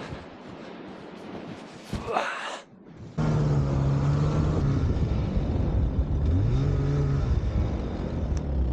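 Snowmobile engine running, faint at first with a brief rev about two seconds in. From about three seconds in it is suddenly loud and close and holds a steady pitch, then drops and revs back up about six and a half seconds in.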